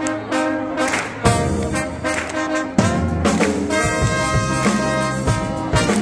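Live brass band playing a jazzy tune: trombones, trumpets and a sousaphone in ensemble over a drum kit, with sharp drum hits.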